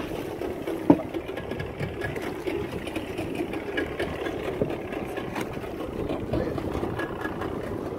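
A small fishing boat's engine running steadily at idle with an even mechanical rattle. There is one sharp knock about a second in.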